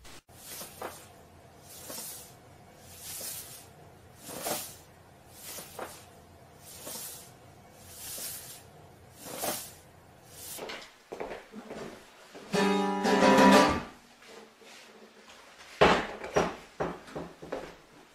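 A soft swishing sound repeating about once a second, then an acoustic guitar strummed in the second half: a loud ringing chord that is cut off after about a second and a half, and a sharp strum near the end that rings away.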